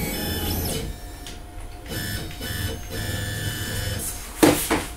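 Onefinity CNC stepper motors whining at a few steady pitches in short stretches as the machine is jogged to raise the Z axis. A couple of loud knocks come near the end.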